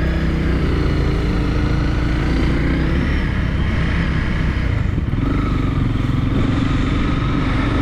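Honda CRF300L's single-cylinder engine running as the motorcycle pulls away and rolls off at low speed, its pitch shifting a little in the first few seconds and then holding steady.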